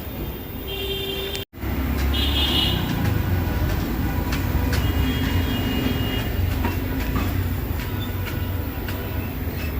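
Low, steady rumble of passing heavy vehicles, with a few short high-pitched tones over it. The sound cuts out for an instant about a second and a half in, then the rumble comes back louder.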